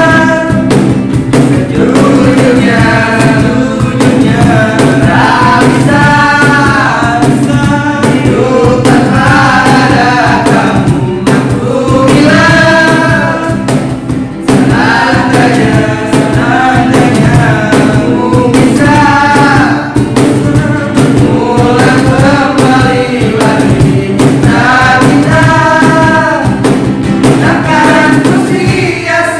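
Several young men singing a song together to a strummed acoustic guitar, with hand-slapped cajon percussion keeping the beat.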